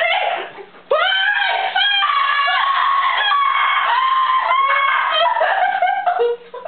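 High-pitched screaming: a short shriek, a brief pause, then a long run of drawn-out shrieks rising and falling in pitch that stops about six seconds in.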